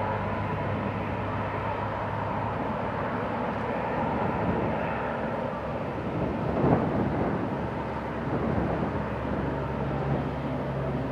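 Four-engine Airbus A340 jet engines running at low taxi thrust: a steady jet hum and whine with a low drone underneath. About two-thirds of the way through, a brief louder rush swells and fades.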